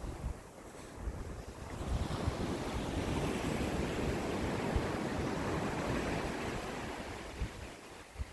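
Ocean waves washing onto the shore, one wave surging up about two seconds in, holding, and fading away near the end. Wind buffets the microphone with low rumbling gusts.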